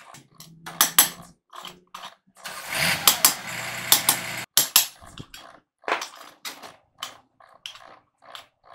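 Irregular light metal clinks and taps as a thin steel bar is worked against a semi truck V-rod's end bearing and its flange, with a few seconds of continuous rougher noise from about three seconds in.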